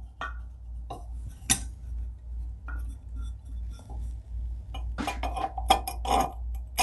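Light clinks and taps of a clear glass globe shade being handled and fitted up against the light fixture's metal holder, scattered at first, then a quick run of them about five seconds in.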